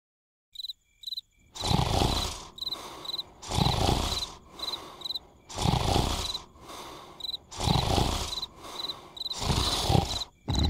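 Cartoon snoring: a noisy snore swelling and fading about every two seconds, over crickets chirping in quick pairs.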